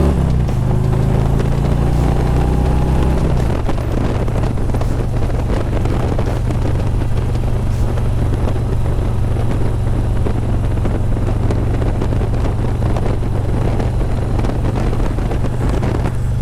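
Harley-Davidson Road Glide V-twin engine running under way, its note changing about three and a half seconds in and then holding steady. Wind rushes over the helmet-mounted microphone with the visor open.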